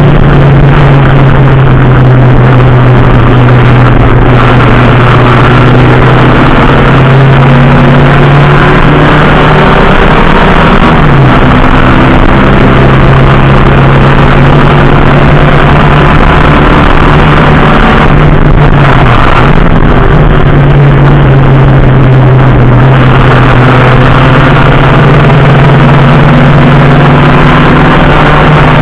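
Racing engine heard onboard at full race pace, very loud, holding a steady high-revving note. The pitch dips briefly and climbs back about a third of the way in and again around two-thirds through.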